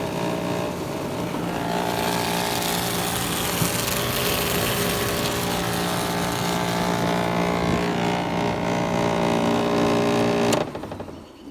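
Vintage window air conditioner running on high with its compressor on, the cabinet vibrating and rattling loudly against the units stacked around it. The sound cuts off suddenly near the end.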